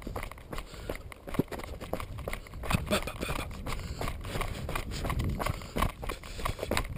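Mountain bike clattering down a rocky dirt trail: tyres crunching over loose stones, with frequent irregular knocks and rattles from the bike over the bumps.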